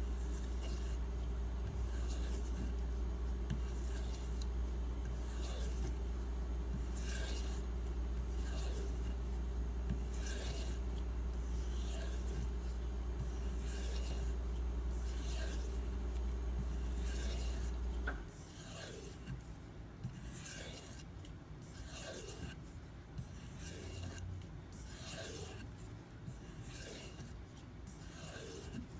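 A Maxamet-steel knife edge being stropped on a leather strop loaded with 1 micron diamond spray: repeated rubbing strokes, a bit under one a second. A steady low hum runs underneath and cuts off suddenly about two-thirds of the way through.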